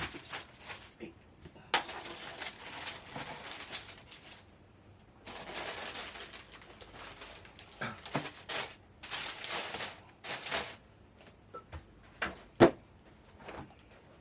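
Handling of a new sneaker and its packaging: bursts of paper or plastic rustling, with a few light clicks and one sharper knock near the end.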